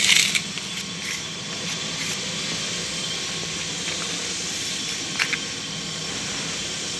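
A putty knife scraping mastic marble adhesive into a joint between marble floor tiles: one short, louder scrape at the start and a few faint scrapes later, over a steady background hiss and low hum.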